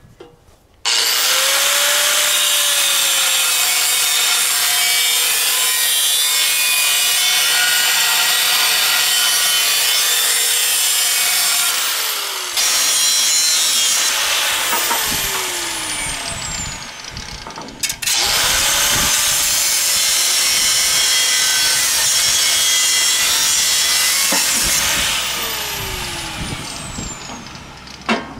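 Angle grinder with a cut-off disc cutting steel box section. It spins up with a rising whine and cuts for about seventeen seconds, stops for a moment, then spins up again and cuts for several more seconds before tapering off near the end.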